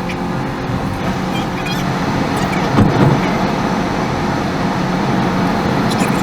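Car driving: steady road and engine noise, with a louder bump about three seconds in.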